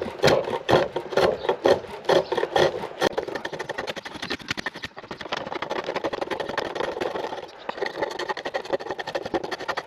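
A turning tool cutting a chestnut spindle on a pole lathe, a rough wooden scraping while the spindle is still out of round. It comes in separate strokes about three times a second at first, then becomes a denser, steadier scraping about three seconds in.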